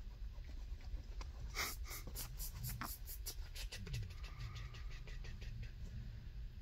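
Rapid scratching on fabric bedding, a quick run of short scrapes that starts about a second and a half in, is loudest for a couple of seconds, then fades. A steady low hum runs underneath.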